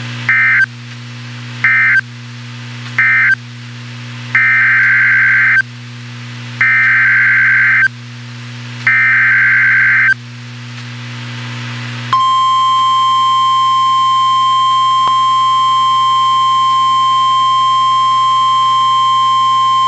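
Emergency Alert System broadcast tones: three short bursts of warbling digital data noise, then three longer bursts, the end-of-message codes of one National Weather Service warning and the header codes of the next. About twelve seconds in, a steady high alarm tone starts and holds, the weather-radio alert signal for a new severe thunderstorm warning, over a low constant hum.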